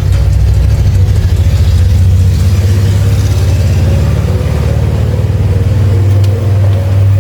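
A motor engine running steadily, with a low, even hum throughout.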